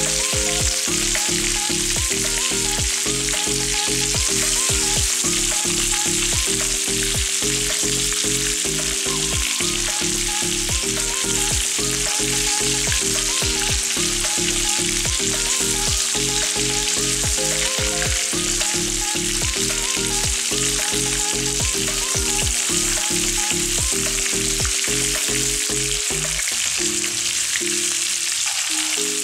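Beef meatballs sizzling steadily in hot oil in a nonstick wok, stirred now and then with a wooden spatula. Background music with a regular beat plays under the sizzle and stops near the end.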